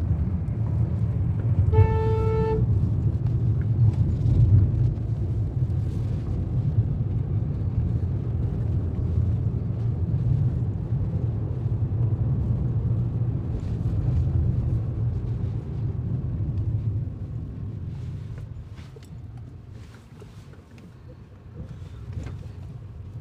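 Road and engine noise inside a moving car's cabin, a steady low rumble, with a car horn sounding once, briefly, about two seconds in. The rumble grows quieter near the end.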